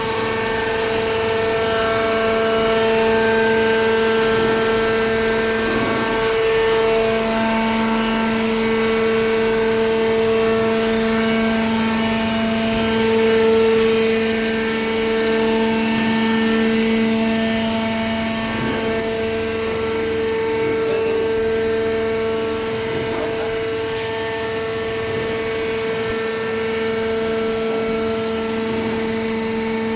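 Automatic baler machine running, a steady, unchanging hum at one fixed pitch that swells slightly in level now and then.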